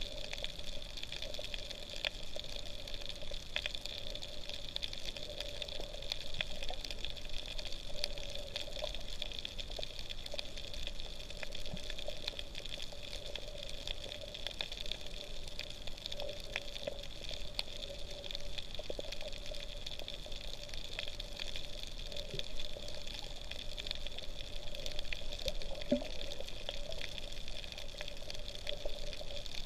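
Underwater sound picked up by a GoPro in its waterproof housing: a steady, muffled wash with a constant hum and many faint, scattered clicks.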